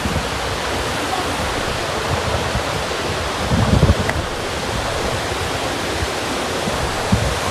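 A fast, strongly flowing mountain river rushing steadily, an even wash of water noise, with a couple of brief low thumps about halfway through and near the end.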